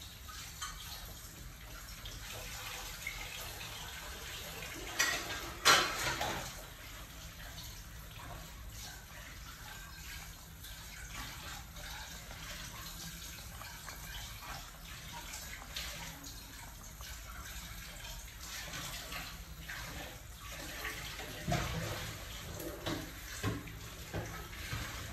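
A pot of meatball and vegetable soup boiling hard: steady bubbling and spluttering, with a couple of sharper, louder pops about five seconds in and a few more near the end.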